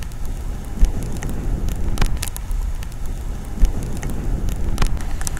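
Motorcycles running, mixed with a heavy low rumble and scattered crackles from wind on the microphone.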